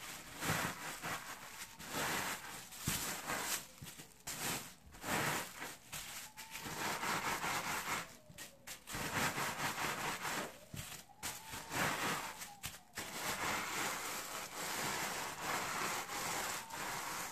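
A plastic bag of crushed biscuits crinkling and crunching as a rolling pin is rolled back and forth over it and hands press it flat, in uneven strokes with short pauses.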